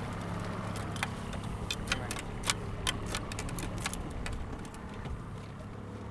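Boat's outboard motor running with a steady low hum, under a string of sharp, irregular clicks and knocks about one to four seconds in as a landing net holding a small king salmon is swung aboard.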